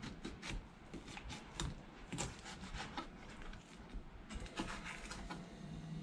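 Kitchen knife slicing a thawed permit fish along its bones on a plastic cutting board: faint, irregular clicks and scrapes as the blade meets the board and the fish.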